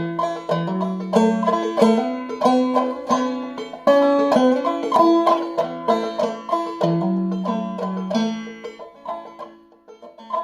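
Five-string banjo played clawhammer style with a capo on the second fret, in the key of A: a steady run of plucked melody notes over a rhythmic strum, easing off over the last two seconds or so.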